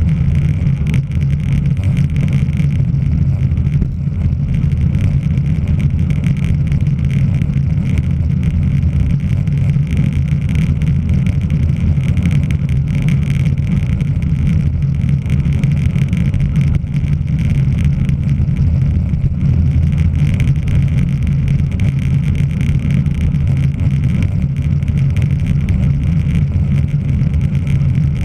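Steady, loud low rumble of wind buffeting the microphone of a camera on a road bicycle moving at race speed, mixed with road and tyre noise.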